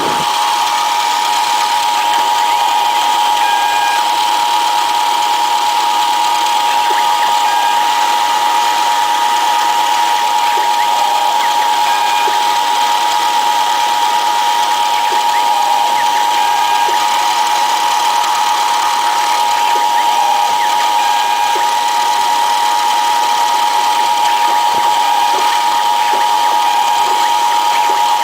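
Small CNC mill engraving a printed circuit board, with stepper motors driving the axes. A steady high whine runs throughout, and short whining stepper tones switch on and off and change pitch every second or two as the axes move.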